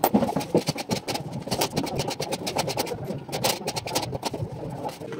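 Red cordless drill-driver running in short bursts with a fast clatter of clicks as it drives threaded studs into wooden ceiling slats.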